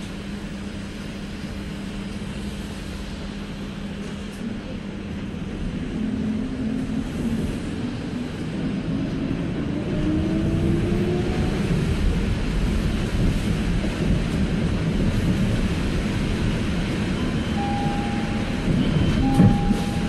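City bus heard from inside the cabin: a steady low hum while it stands, then a rising whine from about six seconds in as it pulls away and speeds up. After that comes louder, rougher rumble and road noise from driving on the wet street. Two short beeps sound near the end.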